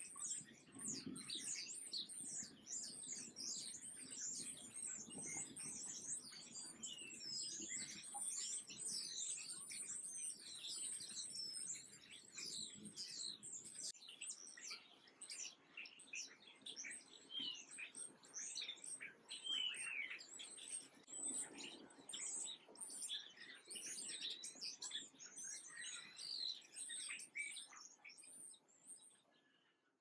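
Many small songbirds chirping and twittering at once, a dense, continuous chorus of short high chirps that fades out near the end.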